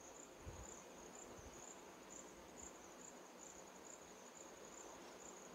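Near silence with a faint, steady, high-pitched insect trill in the background, slightly pulsing. There is one faint click about half a second in.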